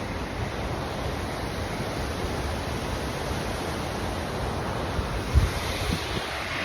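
Waterfall rushing steadily, an even roar of falling water, with a short low thump about five seconds in.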